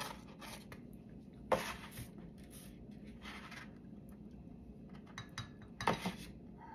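Light clicks, knocks and scrapes of a plastic paint palette and a brush being handled, with two sharper taps, about a second and a half in and near the end, as paint is spattered onto the paper.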